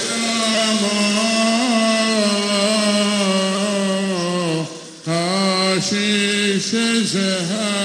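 Slow Syriac Orthodox liturgical chant by male voices: long held notes with gentle ornaments, broken by a short pause for breath about five seconds in.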